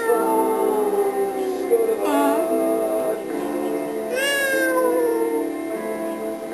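A person imitating a cat, drawn-out meows that rise and fall in pitch, twice, over steady background music, likely the phone's hold music.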